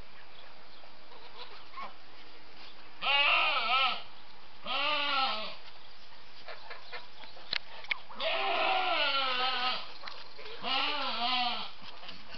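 A nanny goat bleating four times with a quavering voice; the third call is the longest. She is calling for her kid, which has just been taken from her for weaning.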